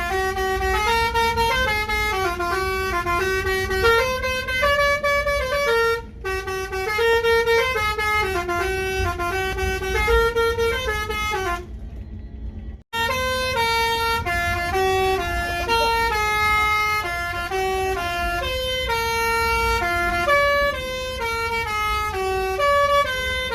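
Multi-tone 'telolet' musical air horn of a bus playing a melody of short held notes, over a low engine rumble. It breaks off briefly about six seconds in and again about twelve seconds in.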